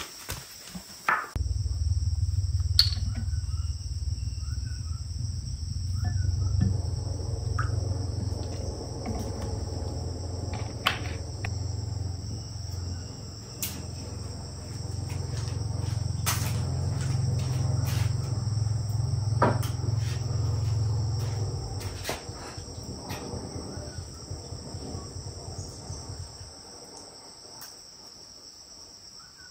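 Insects droning steadily in two high, even tones. A loud low rumble comes in about a second in and fades away over the last few seconds, and light clicks and knocks are scattered throughout.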